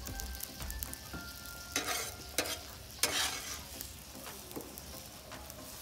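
Beef strips and onions sizzling on a steel fire plate heated by a wood fire in its centre, with a spatula scraping and pushing the food across the plate a few times, loudest about three seconds in.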